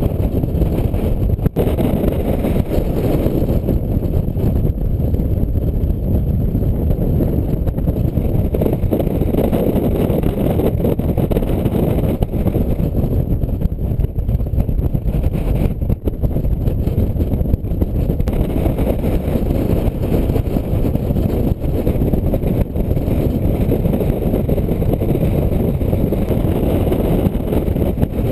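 Strong wind buffeting the camera's microphone: a loud, steady, fluttering low rumble with no other clear sound above it.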